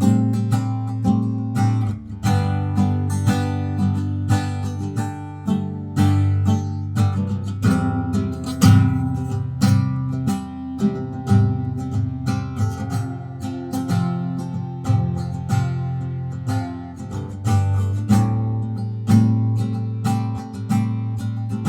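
Steel-string acoustic guitar being played, chords strummed and plucked with frequent attacks and ringing sustain, recorded through a HyperX QuadCast USB microphone.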